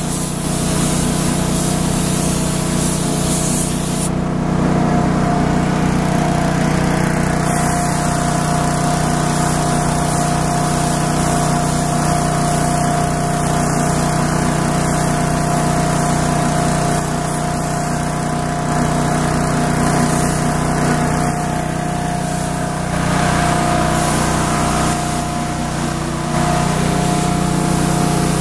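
Compressed-air gravity-feed spray gun hissing as it sprays a clear coating onto painted steel, with a brief let-up a few seconds in. A steady motor hum runs underneath.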